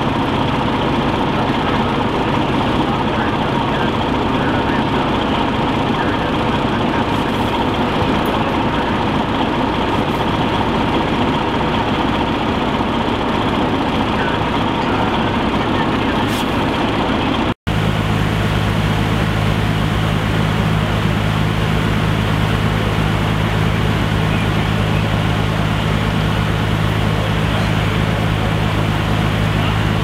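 Fire trucks' engines running steadily, a continuous low drone. About two-thirds of the way through, the sound cuts to a deeper, stronger steady engine hum.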